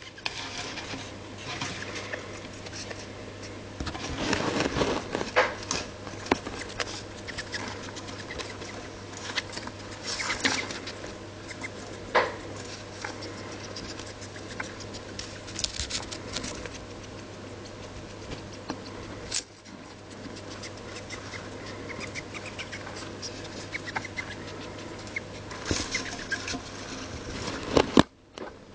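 A pet gerbil with a long-term sniffle moving about, making scattered rustles and many small clicks, over a steady low hum.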